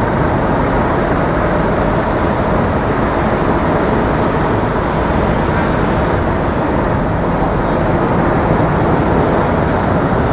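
Steady road traffic noise from a busy city street, a continuous rumble of passing vehicles.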